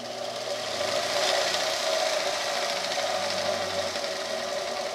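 Shop-built belt grinder driven by a converted bench grinder motor, coming up to speed over about a second and then running steadily, the abrasive belt hissing over its wheels. It is on a test run with added belt tension and electrical tape built up on the drive wheel to crown it.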